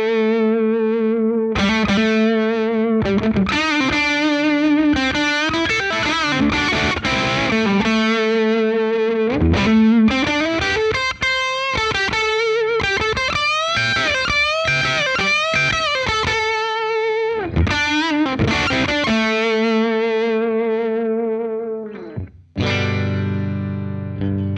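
Electric guitar played through a Catalinbread Dirty Little Secret MkIII overdrive pedal: distorted single-note lead lines with held notes and string bends. Near the end it stops briefly and a new, fuller note or chord rings out.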